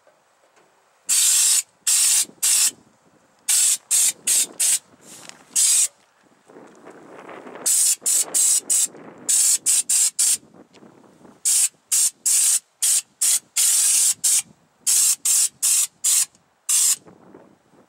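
Compressed-air Schutz-type spray gun blasting U-POL Raptor bedliner out of its screw-on bottle in short trigger bursts of hissing spray. The bursts come two or three a second in clusters, with brief pauses between the clusters.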